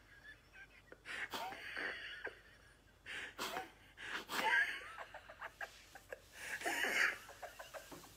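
A man laughing into his clasped hands: about four breathy bursts of held-in laughter with quieter breaths between them.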